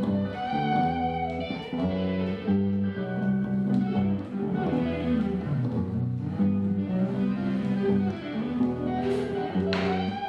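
Instrumental music with held bass notes under a guitar line, without vocals.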